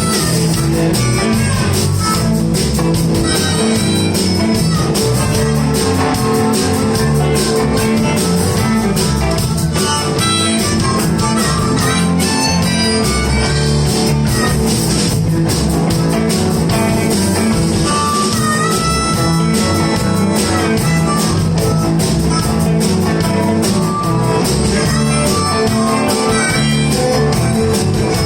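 Live blues band playing an instrumental break, with guitar over bass and drums keeping a steady beat.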